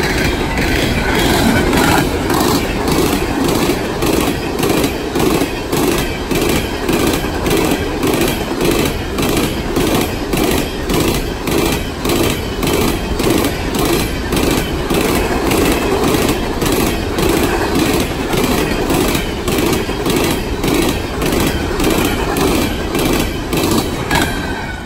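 Freight train of coal hoppers and gondolas rolling past at close range: a steady rumble of steel wheels on rail with evenly spaced clickety-clack as the car trucks cross the rail joints.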